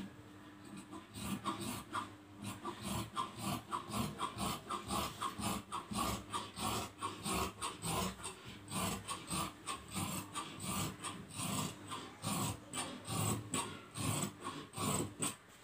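Large tailoring scissors cutting through cloth: a steady run of snips, two or three a second, that stops near the end.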